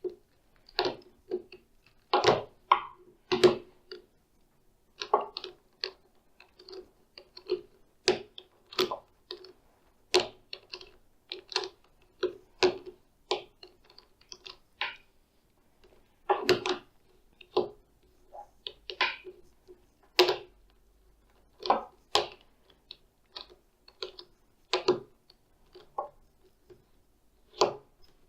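A plastic 3x3 Rubik's cube, a GAN 356 Air speedcube, clacking as its layers are pushed round with a teacher's pointer, one turn at a time. The clicks come irregularly, about one or two a second, some in quick pairs.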